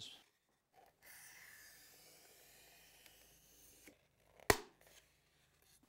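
A blade scoring a rigid foam insulation board with a faint, even scraping, then a single sharp snap about three-quarters of the way in as the scored board is broken in two.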